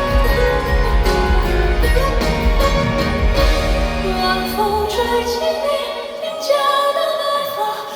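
Live concert music: a high, light male voice singing a ballad melody over a band. About five and a half seconds in, the bass and drums drop away, leaving the voice with lighter accompaniment.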